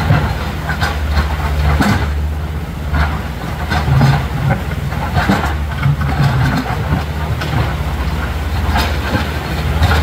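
Diesel engines of two tracked excavators, a Komatsu and a Hitachi, running steadily over rushing river water, with scattered knocks and clanks as the steel bucket works against a boulder.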